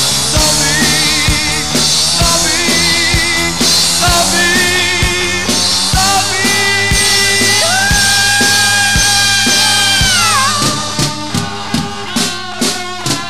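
Rock band playing: a lead melody with wide vibrato in short phrases over bass and drums, then one long held note that bends down about ten seconds in, followed by a string of drum hits.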